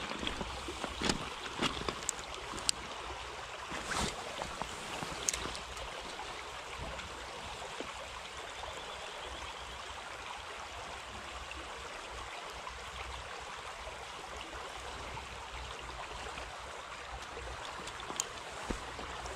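A shallow stream flowing steadily over gravel. Crunching footsteps on loose gravel during the first five seconds or so, and a couple of sharp clicks near the end.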